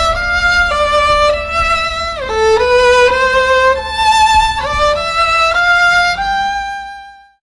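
Background music: a solo violin-like melody of held notes, some linked by slides, fading out near the end.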